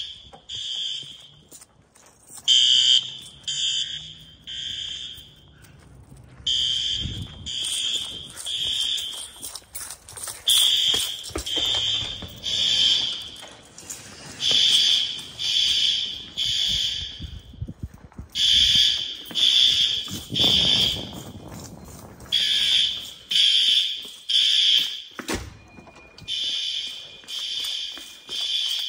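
System Sensor L-series fire alarm horns sounding the temporal-three evacuation pattern: three short pulses, a pause, repeating about every four seconds. The level rises and falls as the horns come nearer and farther.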